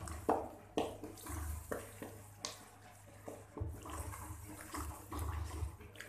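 Wooden spatula stirring a wet tomato, spice and yogurt masala in a metal wok, with a squelchy sound and irregular scrapes and knocks of the spatula against the pan.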